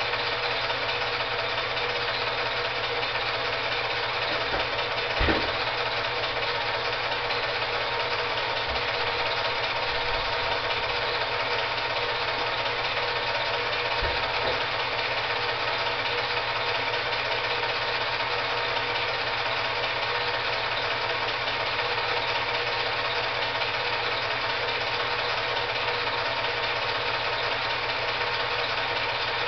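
Steady whirring and clatter of a running 8mm film projector, with two brief knocks, one about five seconds in and one near the middle.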